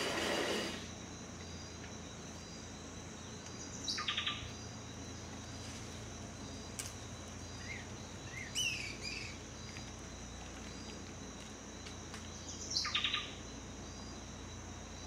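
Birds calling over a steady high insect drone. One call sweeps down into a quick rattle, about four seconds in and again near the end, and there is a chirping call around the middle. A brief burst of noise at the very start is the loudest sound.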